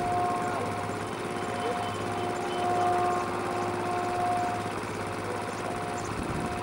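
Abaseen Express passenger train running away along the track: a steady rumble of wheels on rails, with a steady humming tone through it.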